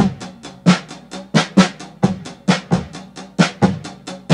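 Background music: a drum beat playing alone, a quick run of sharp drum hits several times a second, with no other instruments yet.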